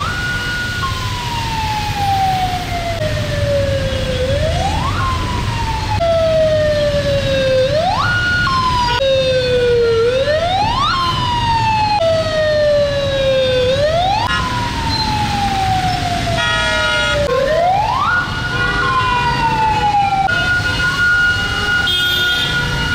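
Emergency vehicle siren wailing over the low rumble of traffic. Each cycle rises quickly and then falls slowly over about three seconds, and the pattern repeats. A vehicle horn sounds briefly about 17 seconds in.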